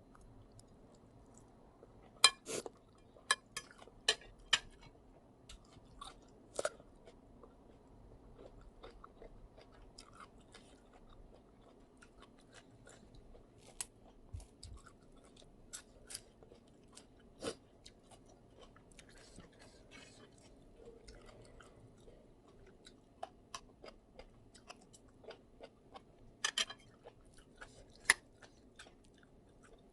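Close-miked eating sounds of a person chewing a spicy instant-noodle salad with shrimp and squid: irregular mouth clicks, smacks and small crunches over a quiet room, with the sharpest clicks about two seconds in and near the end.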